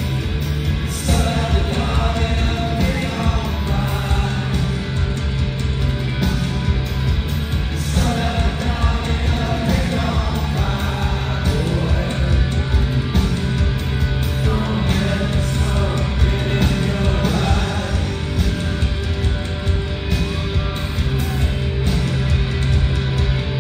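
Live rock band playing loud through a theatre PA: electric guitar, bass and drums, with singing.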